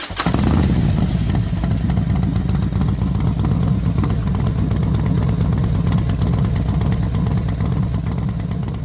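Motorcycle engine running hard and steady, starting suddenly and holding its pitch throughout.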